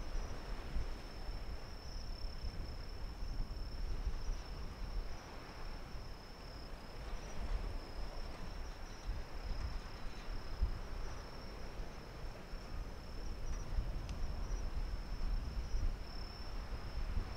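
Insects chirping in a steady high-pitched chorus, over a low rumble.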